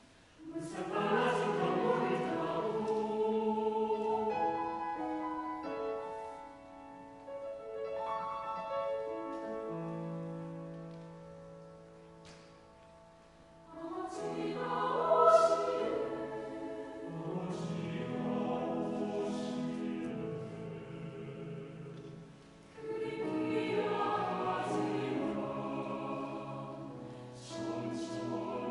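Mixed choir singing a Korean text in several parts, in phrases that enter about half a second in, again about fourteen seconds in and around twenty-three seconds in, each swelling and then easing off.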